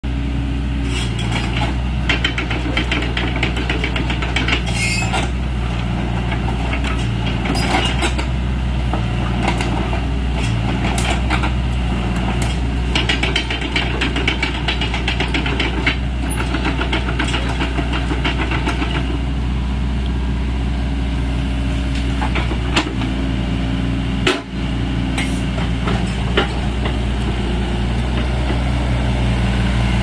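Hitachi ZX60 mini excavator's diesel engine running steadily while the machine works its boom and swings, with irregular clicking and rattling over the engine note.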